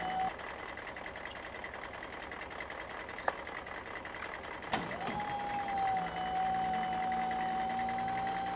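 Toy recycling truck's small battery motor whining steadily: a short whine cuts off just after the start, then a click about halfway through and another click a little later set it whining again, holding one steady pitch.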